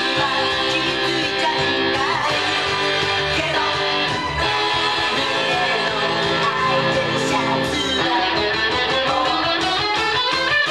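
Les Paul Custom electric guitar played along with a pop song recording, with the recording's band and male singing voice heard alongside it.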